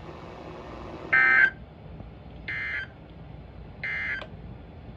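Emergency Alert System end-of-message data tones: three short bursts of warbling digital SAME code, spaced about a second and a half apart, the first the loudest, with faint broadcast hiss between them. They mark the end of the flash flood warning transmission.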